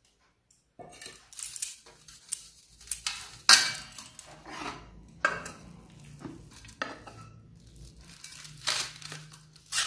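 Steel spoon scraping and clinking against a steel pan and plate as cooked semolina is scooped out and spread. The irregular clinks and scrapes start about a second in, with the loudest clink about 3.5 seconds in.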